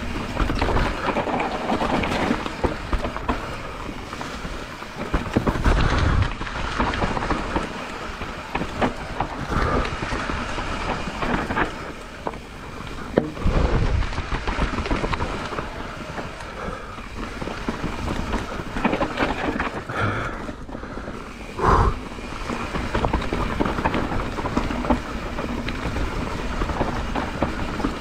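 Mountain bike rolling fast down a dirt and rock trail, heard from a camera on the bike: a steady rush of tyre and wind noise with constant rattling of the bike. A few heavy thumps come as it hits bumps, about six, thirteen and twenty-two seconds in.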